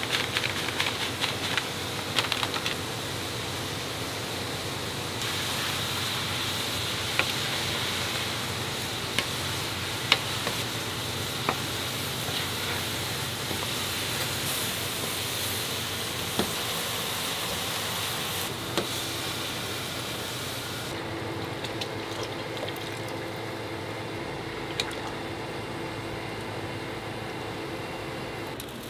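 Chopped vegetable and rice mixture sizzling in a nonstick wok while it is stirred with a wooden spatula, with scattered clicks and knocks of the spatula, thickest in the first few seconds. Near the end the sound turns steadier and duller, with a low hum, as a pot of broth bubbles at the boil and liquid is poured in.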